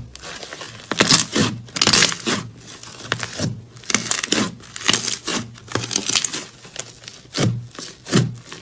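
Slime being pressed and stretched, its trapped air bubbles popping in a series of crackling bursts, roughly one or two a second.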